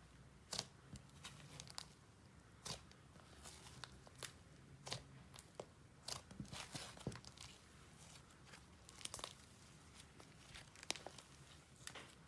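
Slime being handled and stretched by hand, giving faint, scattered sticky clicks and crackles.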